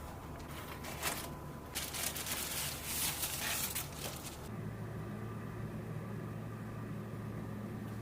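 Typing on an RK S98 mechanical keyboard: a single key click about a second in, then a quick run of keystrokes that stops about halfway through. A steady low hum is left after the typing stops.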